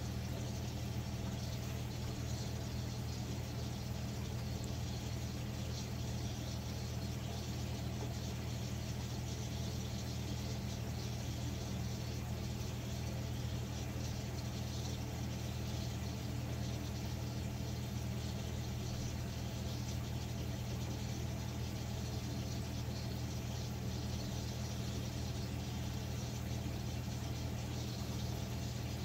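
Steady low mechanical hum of reef aquarium pumps and circulation equipment, unchanging throughout, with a faint hiss above it.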